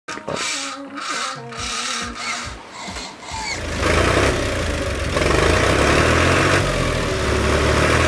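Tractor engine starting: uneven sounds for the first few seconds, then from about three and a half seconds in the engine runs loud and steady.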